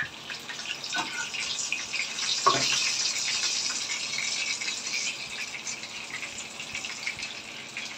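Hot oil and butter sizzling and crackling in a non-stick frying pan as breaded chicken pieces shallow-fry, with a fresh coated piece laid into the fat. A knock comes about two and a half seconds in, and the sizzle gets louder for a few seconds after it.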